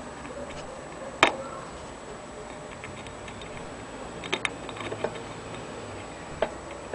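Scattered sharp clicks and small metallic knocks from an antique gramophone soundbox being handled: one loud click about a second in, a quick cluster of clicks a little past the middle, and one more near the end.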